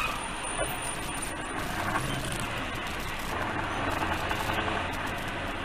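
Steady engine and tyre noise heard from inside the cab of a vehicle driving on a highway, with a low hum underneath.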